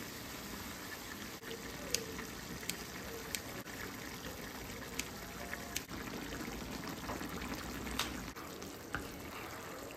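Minced beef and vegetables sizzling in a frying pan as tomato sauce and chopped tomatoes are added and stirred in, a steady wet hiss. Several sharp taps of a knife and wooden spoon against the pan.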